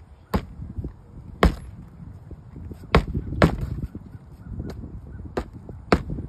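Sharp knocks of a metal hand tool working at asphalt roof shingles during a shingle repair, about seven irregularly spaced strikes.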